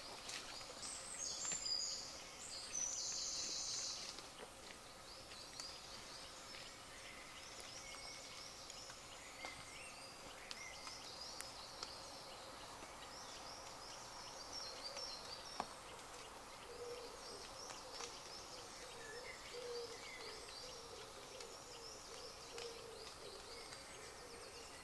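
Woodland birdsong: many small birds singing and chirping, with a louder high trill in the first few seconds and a low, repeated cooing call through the second half.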